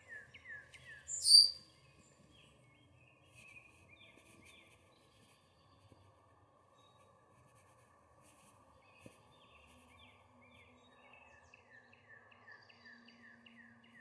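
House wren singing: runs of quick down-slurred chirps, about three a second, near the start and again through the last few seconds, with one sharp, loud high note about a second in.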